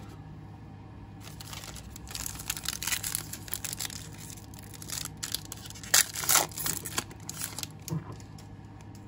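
Trading cards being handled: stiff chromium baseball cards slid and flipped one behind another, making a run of short rustling, scraping strokes. They are loudest about six seconds in.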